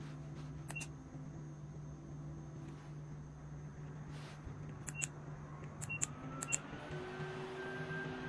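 Buttons on a standing fan's round handheld remote being pressed: a few short, sharp clicks, a pair about a second in and a quick run of them around five to six and a half seconds in.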